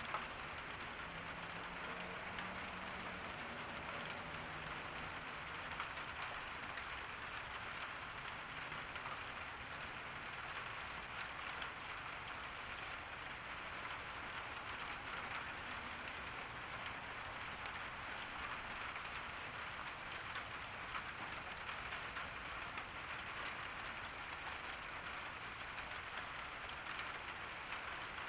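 Steady summer rain falling on a garden: an even hiss of rain with many small drop ticks. A faint low hum sits under it for the first few seconds.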